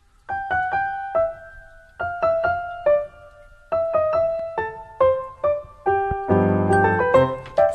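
Background music played on a keyboard: a slow melody of single struck notes, each fading away, with fuller chords near the end.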